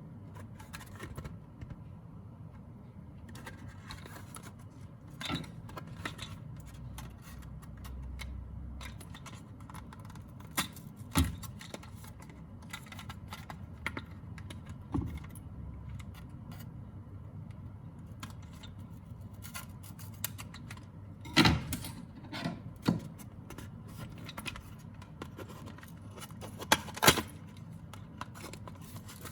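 Hands handling a Hot Wheels die-cast toy's packaging: scattered small clicks, taps and scrapes of plastic and card, with a few louder knocks, the loudest about three quarters of the way through.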